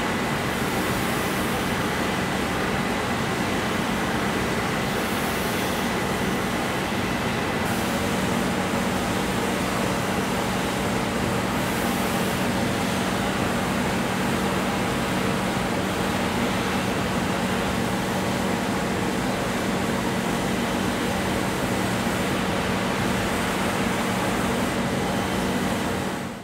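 Motor-driven grinding and polishing wheel running steadily with a whirring hum, a steady low tone and a faint high whine, as a knife's bolster and heel are held against it.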